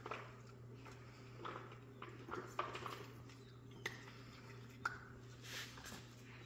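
Jack Russell Terrier puppies moving about on towels: faint scattered clicks and smacks, with a couple of short high squeaks, over a steady low hum.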